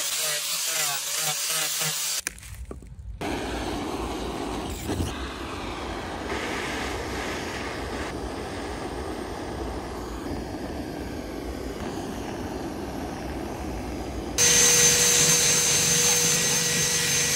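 An angle grinder with a foam sanding pad runs against a wooden bowl and stops about two seconds in. A gas blowtorch then runs with a steady, low rush of flame as it chars the wood. About fourteen seconds in, a cordless drill spinning a brush attachment in the charred bowl starts up with a steady whine, the loudest part.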